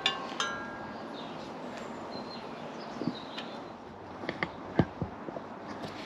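Light metallic clinks and ticks as an old rusted gear cable and its housing are handled and pulled out along a mountain bike frame: two sharp clinks with a brief ring at the start, then a few scattered taps about three to five seconds in.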